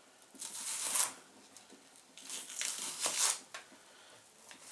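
Kitchen knife slicing through an onion on a cutting board: two drawn-out scraping strokes, the second longer.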